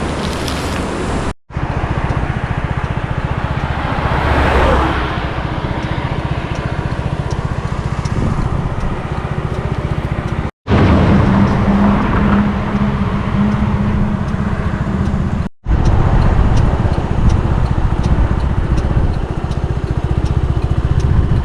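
Road vehicle noise with a heavy wind rumble on the microphone. The sound cuts off abruptly three times where short clips are joined, and a passing swell of noise comes about four seconds in.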